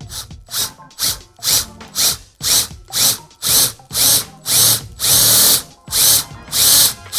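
Handheld electric drill run in short trigger bursts, about two a second, drilling out the rivets that hold a car's inner window sweep so the rivet heads pop off; one longer burst comes about five seconds in.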